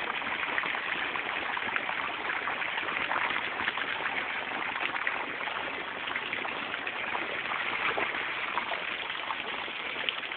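Steady rush and splash of a pool's lit arching water jets falling into the pool, an even noise with no breaks.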